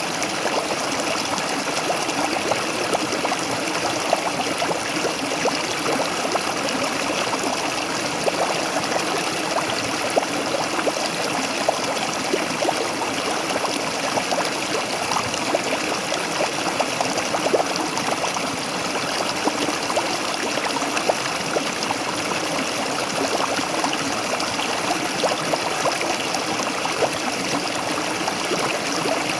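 Waterfall: a steady rush of falling water, with many small splashes and trickles scattered through it.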